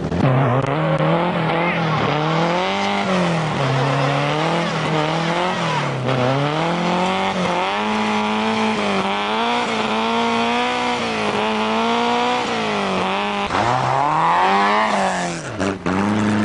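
Rally car engine revving hard on and off the throttle, its pitch rising and falling again and again, about every one to two seconds.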